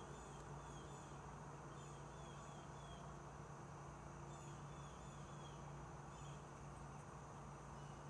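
Quiet room tone: a steady low hum and a faint steady high whine, with faint short falling chirps coming in small groups every second or two.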